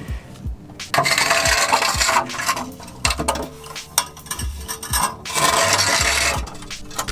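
Scraping and rubbing noises in two long stretches, with a few knocks between them.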